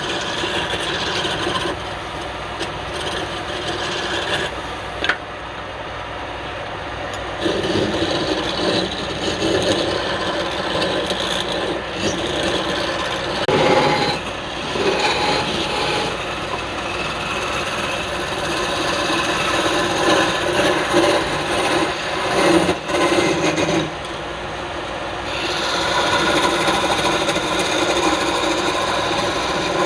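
Wood lathe running while a turning tool cuts and scrapes the spinning wood, a continuous rasping noise that grows and eases in strength as the tool works.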